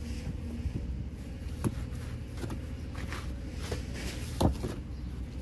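A few scattered sharp knocks and taps, the loudest about four and a half seconds in, over a steady low rumble.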